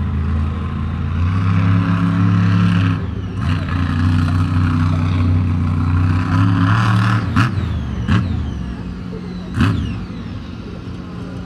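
Monster truck engine revving hard and holding high, easing off briefly about three seconds in before revving up again. In the second half the revs drop and three sharp bangs stand out.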